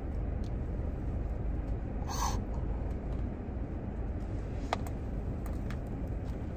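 Steady low rumble inside a parked car's cabin. About two seconds in comes one short breathy hiss, and a few faint clicks follow later.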